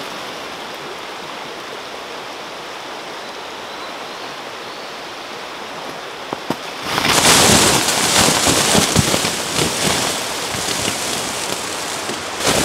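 Shallow river running steadily over stones. About seven seconds in, a louder rushing, crackling noise comes in and keeps on.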